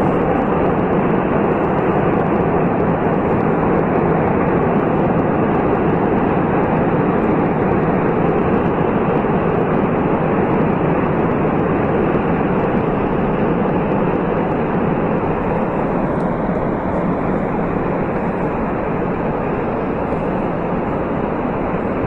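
A large rockslide coming down a mountainside: a steady, unbroken rumble of falling rock and debris that eases slightly toward the end.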